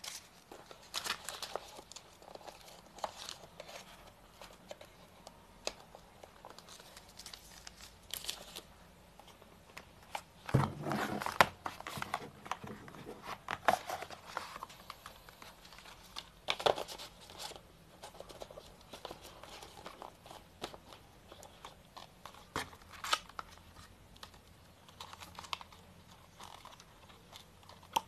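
Cardboard phone box and its plastic packaging being handled: scattered rustling and crinkling with light taps and knocks of the box and lid, busiest about ten to twelve seconds in.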